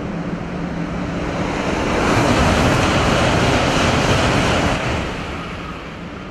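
Shinkansen bullet train passing through the station at high speed: a rushing roar of air and wheels that builds over the first two seconds, is loudest for about three seconds, then falls away. A steady low hum continues underneath.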